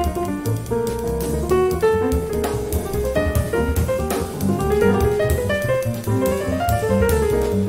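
Instrumental background music in a jazz style: piano playing a moving melody over drums and bass.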